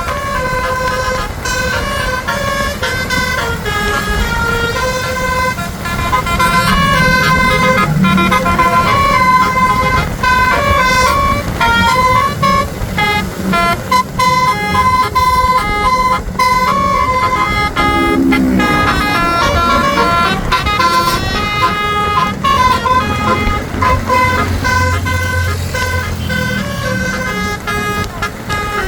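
A bus's basuri musical air horn playing a melody in quick stepped notes, over road and engine noise. A low engine rumble swells for a few seconds near the end.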